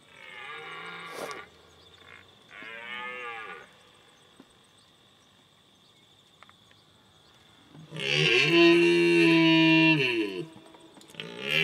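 A series of long, low, pitched calls, each bending in pitch: two fainter ones in the first few seconds, then a loud call about eight seconds in that lasts over two seconds, and another beginning near the end.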